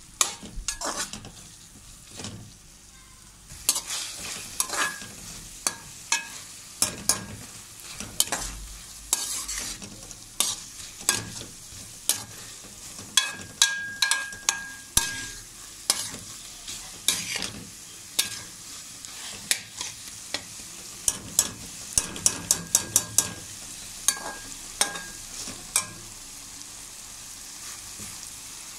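Slotted metal spatula scraping and clinking against a metal wok as vegetables stir-fry with a steady sizzle. The strokes come irregularly, with a fast run of taps about three-quarters of the way through and a brief ringing scrape around the middle.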